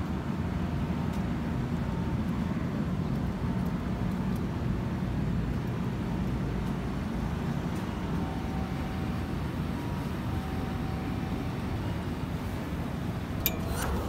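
Steady city street ambience with a low traffic rumble. A couple of sharp clicks come near the end as a glass door is pushed open.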